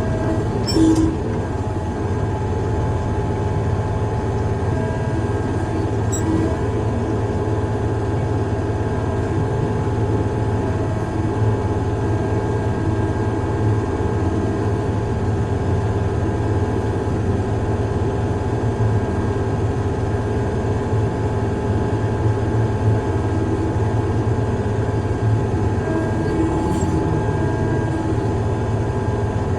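Heavy construction machine's engine running steadily under a constant low drone with a few steady higher tones, and a brief knock about a second in.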